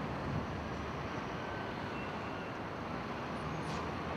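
Steady road traffic noise from cars on a city street.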